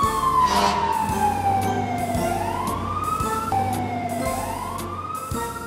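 Fire engine siren wailing: a slow tone that sinks for about two seconds and then climbs, breaks off partway through, and sinks and climbs again before stopping near the end.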